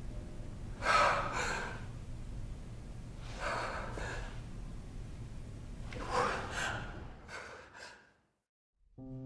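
A woman sobbing, with four or five ragged breaths spread across a few seconds, the last two short and quick. A moment of silence follows, and a piano starts playing right at the end.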